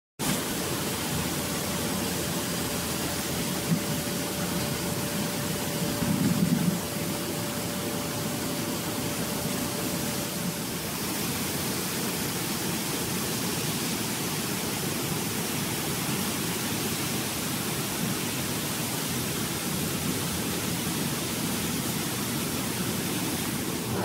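Steady rushing, bubbling water from a stainless-steel bubble vegetable washing machine, air and spray bars churning its tank. A faint steady hum runs through the first half, and there is a brief louder surge about six seconds in.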